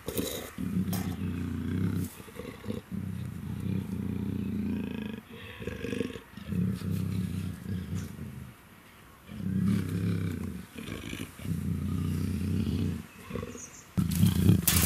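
Black leopard female in heat giving long, low moaning growls one after another, each a second or two long with short breaks between, with a quieter pause a little past the middle. These are her estrus calls.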